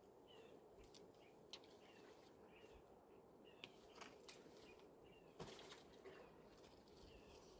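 Faint, short bird chirps repeating about every half second, with a few soft clicks, the strongest about five seconds in, over a low steady background hiss.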